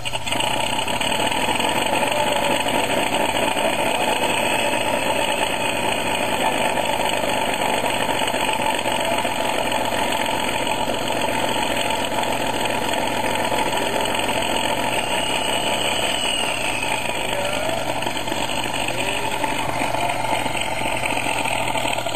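A steady engine drone that starts abruptly and holds at an even level, without breaks.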